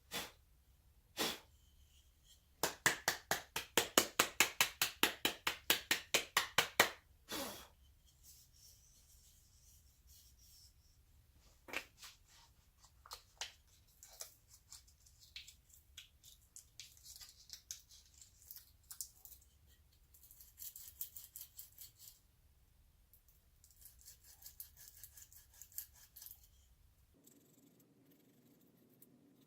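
Sandpaper rubbed back and forth by hand over a wooden block, a quick run of rasping strokes about five a second, then fainter, scattered strokes.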